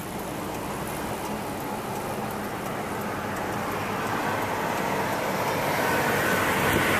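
Road and wind noise from a car driving on a bridge, a steady rush that grows gradually louder.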